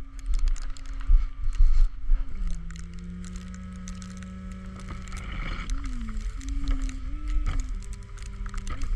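Flatbed tow truck running with its PTO hydraulic pump engaged: a steady hum that drops in pitch about two seconds in, wavers up and down for a couple of seconds, then settles, as the hydraulic load changes. A low rumble runs underneath, with several knocks in the first two seconds.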